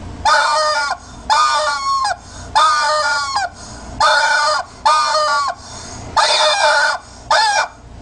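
Screaming rubber chicken toy squeezed over and over: seven loud, drawn-out squawks in quick succession, the last one shorter.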